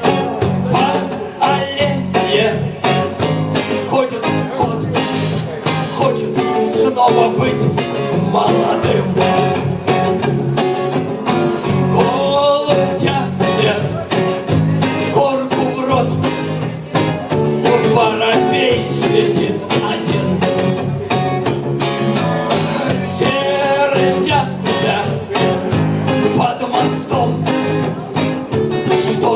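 A rock band playing a guitar-led passage of the song with no clear vocals.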